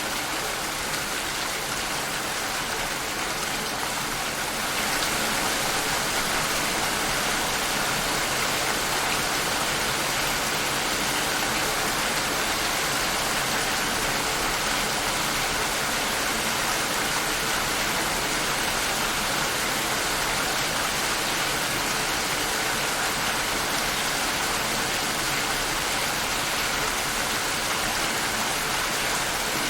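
Steady heavy rain falling, a dense even hiss of drops that gets slightly louder about five seconds in.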